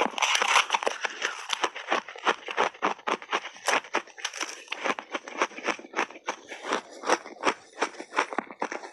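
Crunching and chewing of mouthfuls of hard shaved ice: a rapid, uneven series of crisp crunches, about four a second.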